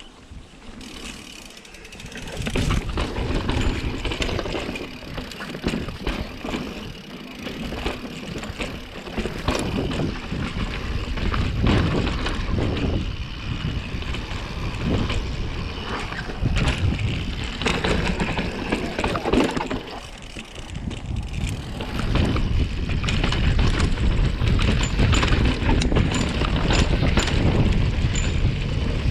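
Mountain bike riding fast down a dirt trail. Wind rushes over the microphone and the bike rattles and knocks over the rough ground. The ride starts about two seconds in and grows louder toward the end.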